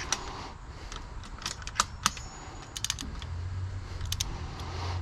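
Ratchet torque wrench and socket working on spark plugs, making scattered sharp metallic clicks, some in quick ratcheting runs. A steady low hum comes in about three seconds in.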